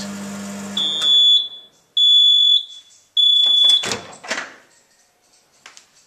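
Microwave oven humming at full power, then shutting off just under a second in at the end of its 20-second run and sounding three long high beeps about a second apart. A few clicks and knocks follow, as of the door being opened.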